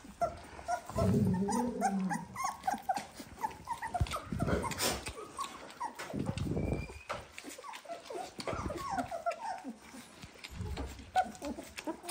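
Eighteen-day-old Dalmatian puppies squeaking and whimpering again and again, with a deeper drawn-out whine about a second in and a sharp knock about five seconds in.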